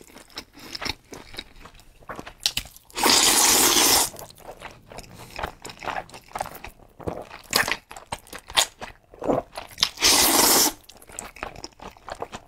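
A person slurping noodles loudly twice, about three seconds in and again about ten seconds in, each slurp lasting about a second, with wet chewing and mouth clicks in between.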